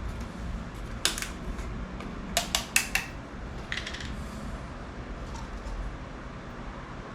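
A few sharp clicks and knocks of containers being handled while motor oil is measured out: one about a second in, then a quick cluster of three or four. A steady low hum runs underneath.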